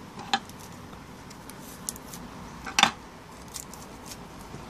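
A strip of clear adhesive tape pulled from its roll and torn off by hand: a short crackle about a third of a second in and a louder one near three seconds, with small handling clicks between.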